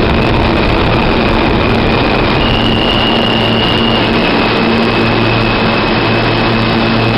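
Riding inside a New York City subway car on the E line: a loud, steady rumble of the train running on the rails, with a low motor hum and a thin high whine that jumps up in pitch about two seconds in and drops back a couple of seconds later.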